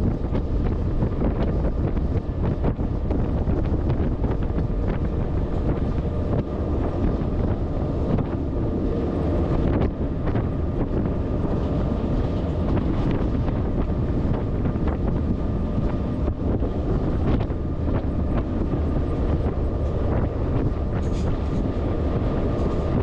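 Freight train running along the rails: a steady rumble of wheels and wagons with wind buffeting the microphone. A couple of brief high squeals come near the end.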